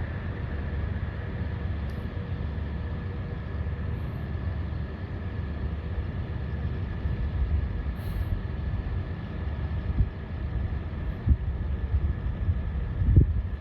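Heavy repair machinery running steadily: a low engine rumble with a faint steady whine over it, and a few louder bumps near the end.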